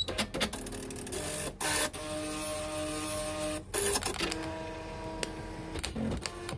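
Nakajima AX-150 electronic typewriter running just after being switched on: its mechanism clicks, and its motor whirs steadily in two runs of about a second and a half each, with a short break between them.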